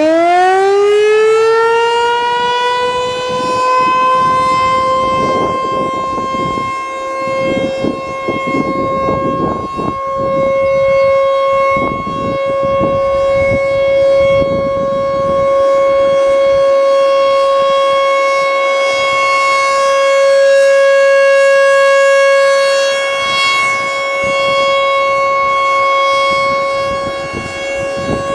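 American Signal Corporation T-128 rotating electromechanical outdoor warning siren sounding its full alert signal on a test. It winds up quickly in the first second or two, then holds one loud, steady tone whose level swells and dips slightly.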